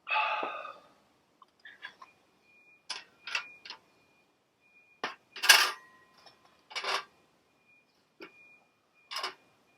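A short rushing burst, then a series of sharp, bright knocks and clinks, about six spaced irregularly, the loudest about halfway through; a faint thin whistle-like tone comes and goes beneath them.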